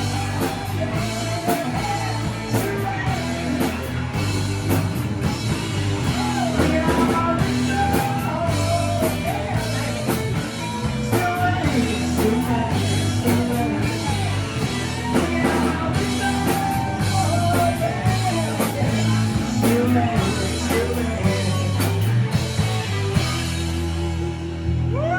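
A rock band playing live: a drum kit beating steadily under guitar and bass, with a lead melody bending over the top.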